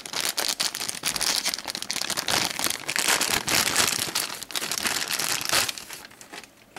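Packaging crinkling and rustling in the hands as accessories are unwrapped, a dense crackle that dies away near the end.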